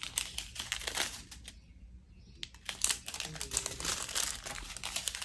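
Small clear plastic bags of diamond-painting drills crinkling and crackling irregularly as they are handled, with a brief lull about two seconds in.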